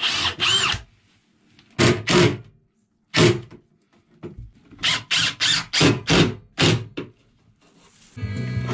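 A power drill running in two short bursts, its pitch rising and falling, then a series of separate knocks on timber, about seven in quick succession in the second half. Background music comes in near the end.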